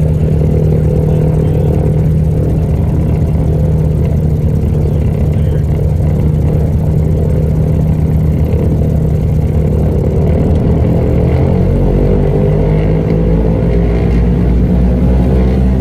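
Light airplane's piston engine and propeller running steadily, the pitch climbing gradually over the last few seconds as the engine speeds up.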